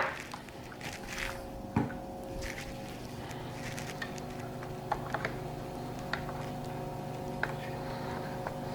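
A soapy rubber grommet is being pushed and worked into a hole in a plastic part, giving faint squishing and scattered small clicks and knocks of rubber and plastic being handled. A sharper knock comes at the very start and another about two seconds in. A steady hum runs underneath.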